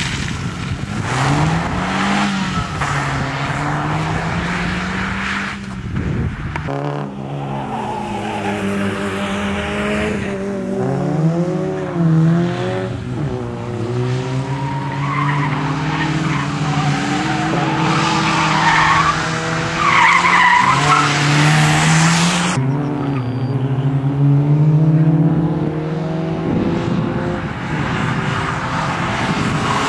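Fiat Seicento rally car engine revving hard, its pitch climbing and dropping again and again through gear changes as the car is driven flat out through corners, with tyre and gravel noise as it slides. The sound jumps abruptly twice where shots change.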